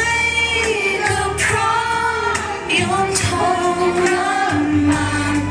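Several voices singing a Thai pop ballad together into microphones over a backing track, a woman's voice to the fore, amplified through the PA.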